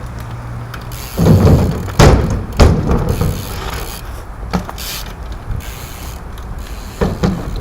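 A BMX bike being ridden: a run of heavy thumps and clattering knocks about a second and two seconds in, then fewer, smaller knocks.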